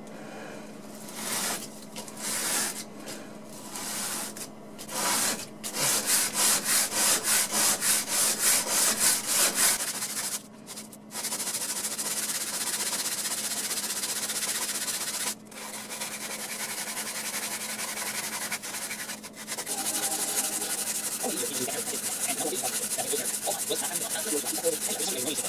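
Metal debit card rubbed back and forth on sandpaper, grinding a bevel onto its edge to sharpen it. Irregular strokes at first, then quick even strokes about three or four a second, then steady continuous sanding with a few brief pauses.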